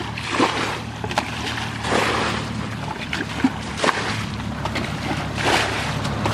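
A small motor hums steadily while irregular splashes and swishes of water, with a few sharp knocks, come and go over it.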